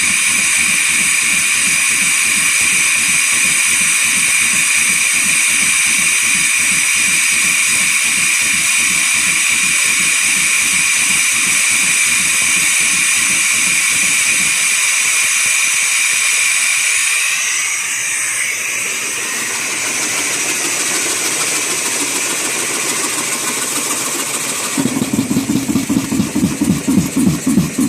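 Roberts air compressor pumping with a steady rhythmic chug under a loud, high hiss of escaping air. About halfway through, the chugging stops while the hiss goes on and changes. A rhythmic low pulsing returns near the end.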